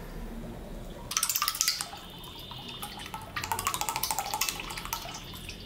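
Cooking oil poured from a plastic bottle into a heated kadai, glugging and splashing in two spells, the second longer.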